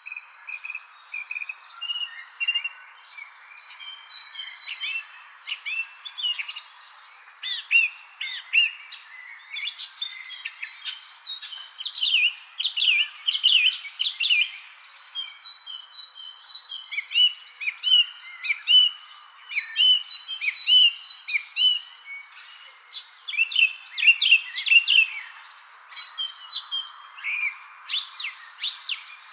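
Several songbirds chirping in many short, quick calls, over a steady high-pitched insect trill that runs on unbroken.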